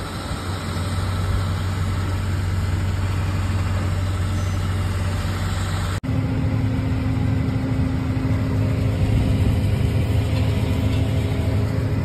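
Farm diesel machinery running steadily: a John Deere tractor with a grain cart augering corn into a semi trailer. About halfway through it cuts off abruptly to a combine harvesting corn, a different steady hum with a held tone.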